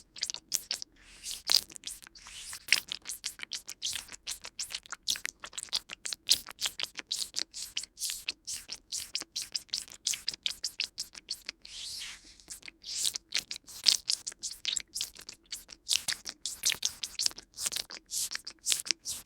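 Eggplant being bitten and chewed close to the microphone: a dense run of wet, squishy chewing clicks, several a second, with a longer smeared squelch about twelve seconds in.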